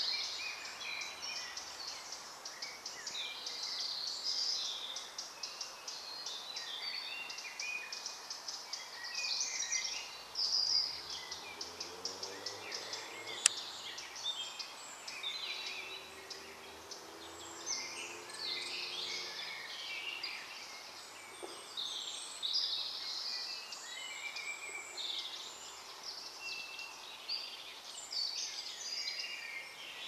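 A woodland spring dawn-chorus-style mix of several songbirds singing at once, short overlapping chirps and warbled phrases. A single sharp click sounds about halfway through, and a faint low hum rises in the middle and fades away.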